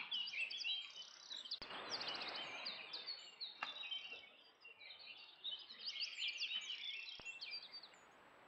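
Several songbirds singing at once: overlapping high chirps, trills and short whistles, with a brief rush of noise about one and a half seconds in. The birdsong stops abruptly about eight seconds in, leaving only a faint steady hiss.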